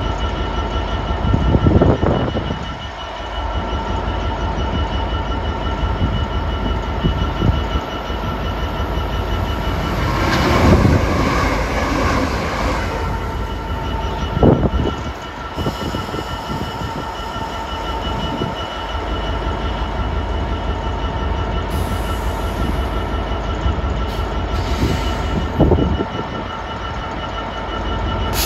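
DB Cargo Class 66 diesel locomotive running as it passes slowly and close by: its two-stroke V12 engine gives a steady low rumble with a constant whine on top, and there are a few brief louder squeals and clanks from the wheels, most strongly about ten to thirteen seconds in.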